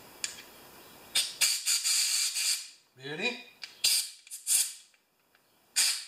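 Compressed-air blow gun blowing out a Tecumseh carburetor: a long hissing blast about a second in, then several short, sharp blasts of air.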